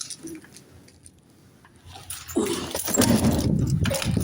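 Footsteps crunching through deep snow: quiet at first, then a loud run of crunching from about halfway through.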